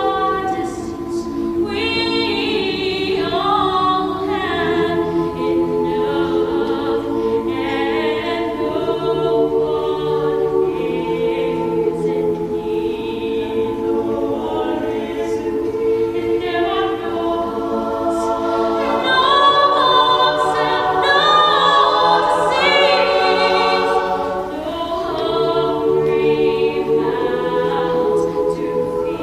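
Mixed choir of men and women singing long held chords, with a female soloist's voice carrying a melody above them.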